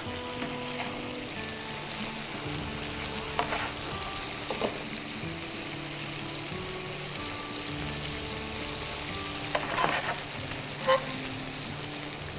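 Pieces of marinated chicken tikka sizzling steadily as they fry in olive oil in two non-stick pans, with a few brief clicks.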